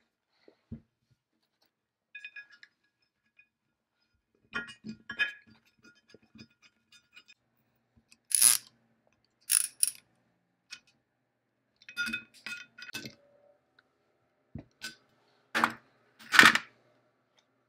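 Scattered metallic clinks and clicks, some with a short ring, as bolts and small metal parts are handled and threaded into a cast machine base by hand. Several louder short knocks or scrapes come about 8 seconds in, again near 10 and 12 seconds, and strongest near the end.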